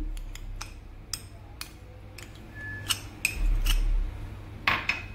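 Metal spoon clinking and scraping against glass bowls while thick cream is scooped out and added to chicken: a scattering of short sharp clicks, with several louder ringing taps about three to five seconds in.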